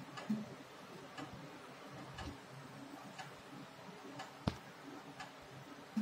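Faint, regular ticking, about one tick a second, over a low steady hum, with one sharper, louder click about four and a half seconds in.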